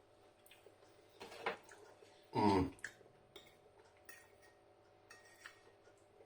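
Light clicks and a short scrape of metal cutlery on a plate while eating, with a brief low hum-like voice sound from the eater about two and a half seconds in.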